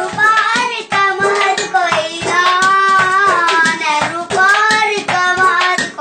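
A voice singing over fast hand drumming, with a large metal pot struck by hand as a drum and frame drums keeping the beat.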